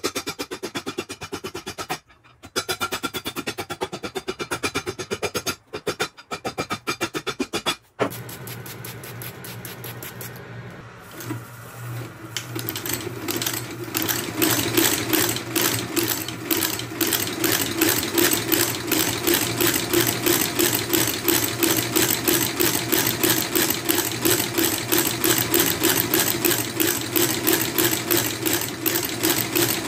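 Background music at first. About twelve seconds in, a motor-driven shoe-repair machine starts up and runs steadily with a fast, even pulse, about four to five beats a second.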